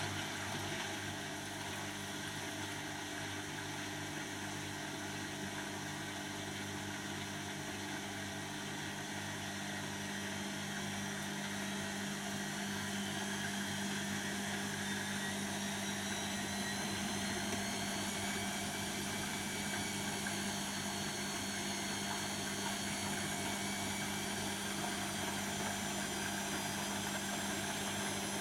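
Beko WTB741R2A washing machine's drum spinning at about 400 rpm, with a steady motor hum. About halfway through a motor whine rises in pitch and the sound grows slightly louder as the spin speeds up.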